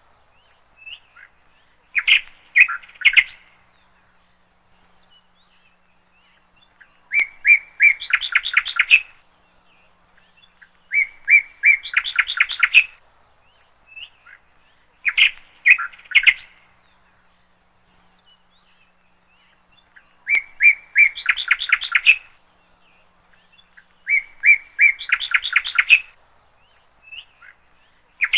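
A songbird singing: short phrases of a few clear notes that run into a quick series of notes, repeated about every four seconds, with single short chirps in the gaps.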